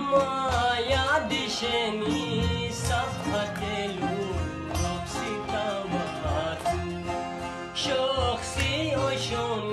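Khowar folk music instrumental: a Chitrali sitar plays a lead melody with sliding, bending notes over a steady low beat.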